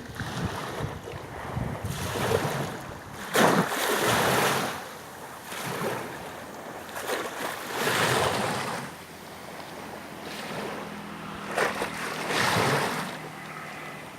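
Sea waves washing in, swelling and falling back about every four to five seconds, with wind buffeting the microphone. A faint steady low hum comes in about two-thirds of the way through.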